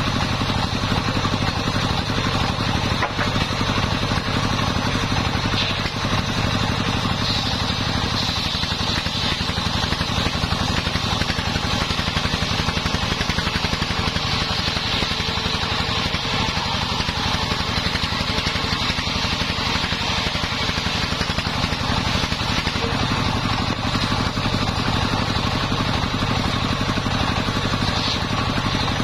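Homemade bench circular saw ripping sengon timber: the large blade whines steadily as it cuts, over the even drone of the engine that drives it.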